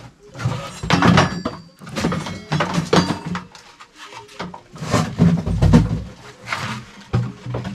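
Clattering and knocking of household items being picked up and set down, including a wooden frame knocking against other things, with a heavy thud about five and a half seconds in.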